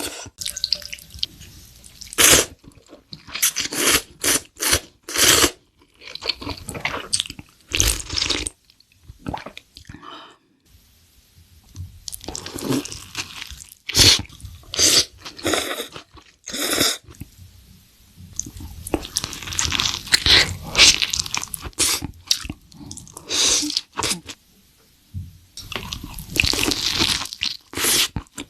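Close-miked eating sounds: irregular crunching bites and chewing of food, with short pauses between mouthfuls.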